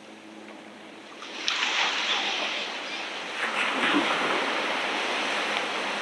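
Ocean waves breaking on the beach: the rush of a wave builds about a second in, surges again a couple of seconds later, then slowly eases as the wash spreads out.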